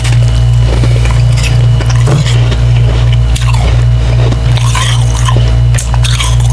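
Biting into and chewing soft, water-dipped frost chunks: scattered wet crunches and squishes of slushy ice. A loud, steady low hum runs underneath.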